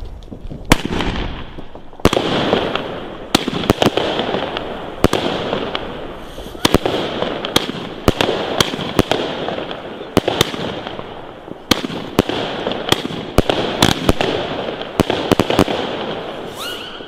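Small Funke 'Red Blue' compact firework battery firing shot after shot, about one to two sharp bangs a second, with crackling between the shots.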